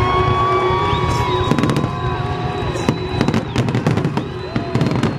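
Fireworks going off in quick succession: a dense run of sharp crackles and pops over a steady low rumble of bursts. Several long whistling tones, each held about a second, sound over the crackling.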